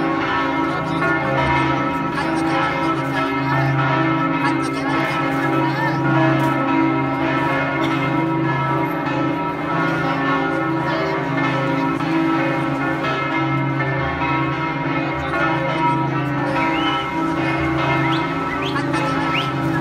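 Church bells ringing in a continuous peal, many bell tones overlapping and sustaining together.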